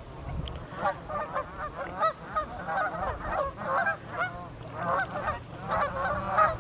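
A flock of Canada geese honking: many short calls overlapping in a continuous chorus.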